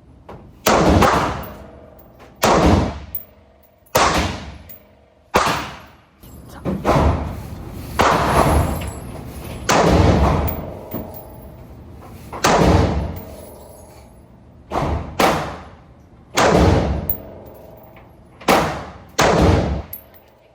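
Gunshots fired one after another, about fifteen of them roughly one to two seconds apart, each shot followed by an echoing tail.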